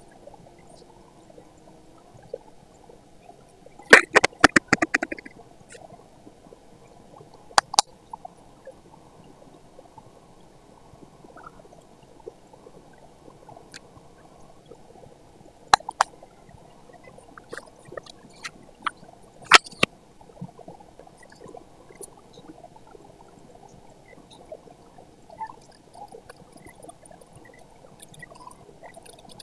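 Paper and card being handled on a desk: a few short crinkles and sharp taps as sheets are picked up, laid down and pressed, over a low steady hum.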